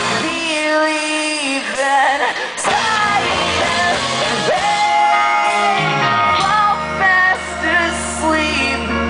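Live rock band playing, with sung and shouted vocals over electric guitar and bass guitar. About six seconds in, a low note slides down and then holds.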